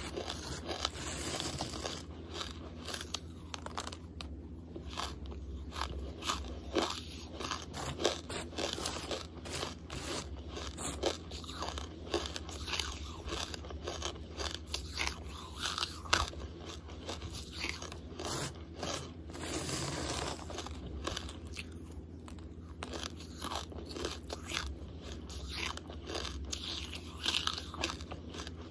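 Close-miked chewing of hard charcoal: dense, irregular crunches and sharp cracks as pieces are bitten and ground between the teeth, over a steady low hum.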